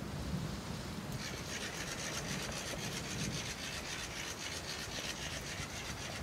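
Motorized hanging Halloween decoration whirling around, its mechanism making a fast, even rasping clatter that starts about a second in.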